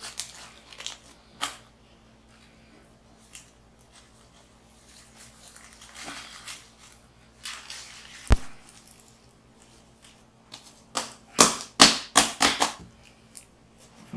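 Slime being mixed and worked by hand: scattered light clicks and crackles, one sharp knock about eight seconds in, and a quick run of loud snapping pops near the end.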